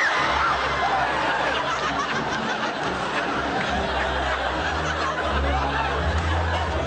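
Studio audience laughing over dramatic film music.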